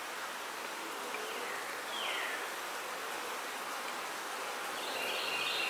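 Honey bees buzzing around an open hive, an even steady hum, with a louder, closer buzz starting near the end.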